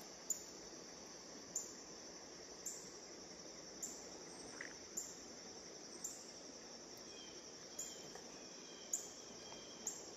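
Quiet riverside ambience: a steady high insect drone, with a short sharp tick about once a second. Faint bird chirps come in during the second half.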